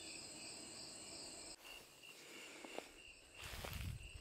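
Crickets chirping in a steady, even pulse. A short low rumble comes about three and a half seconds in.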